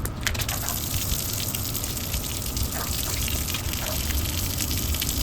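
Water gushing out of a pressure washer trigger gun on mains pressure alone, with the pump still off, spitting unevenly as air is purged from the hose.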